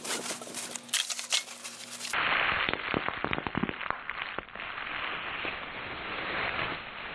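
Packing material crackling, crinkling and rustling as parts are unpacked, full of sharp crackles and clicks. The crackling gets denser about two seconds in.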